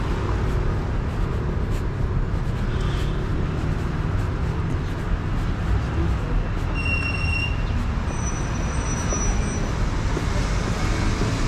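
Steady city street traffic noise: a low rumble of vehicles on the road, a bus among them. A few short, thin high tones sound around the middle.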